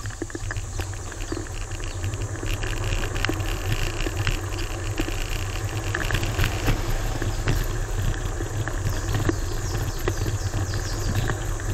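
Electric kick scooter ride noise: low wind rumble on the microphone and road noise, with scattered clicks and rattles over the pavement. The noise builds over the first couple of seconds as the scooter gathers speed, then holds steady.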